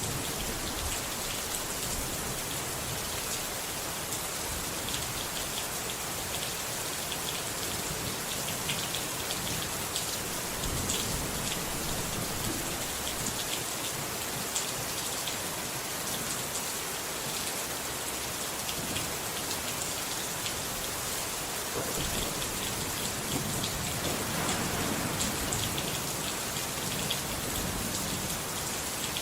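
Steady rain falling, with individual drops ticking on a surface. A low rumble, likely distant thunder, swells and fades about three-quarters of the way through.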